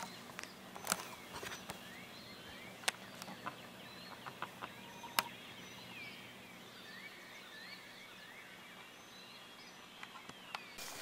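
Faint birdsong from several small birds calling and chirping, over a low outdoor hiss, with a few sharp clicks, the loudest about five seconds in.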